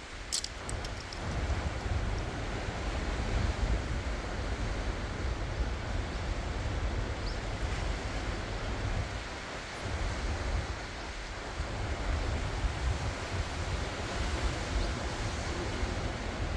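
Ocean waves washing onto the shore in a steady surf, with wind buffeting the microphone as a fluctuating low rumble.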